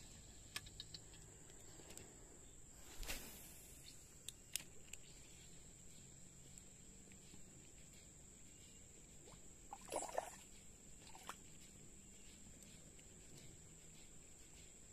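Faint riverside ambience: a steady high-pitched insect drone, with a few soft clicks and a brief louder sound about ten seconds in.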